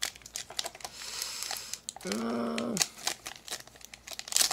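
Foil booster pack crinkling and tearing as it is ripped open, in a run of sharp crackles. About two seconds in, a voice gives a short, steady hum.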